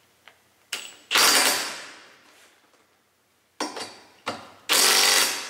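Cordless impact wrench driving in a harness bar mounting bolt with a socket. A short blip on the trigger is followed by a hard run of about half a second, then it happens again near the end after two more short blips.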